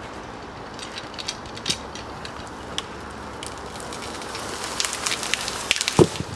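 A small felled conifer going over: scattered cracks and snaps of wood and branches that come thicker as it falls, then a heavy thud as the trunk hits the ground about six seconds in.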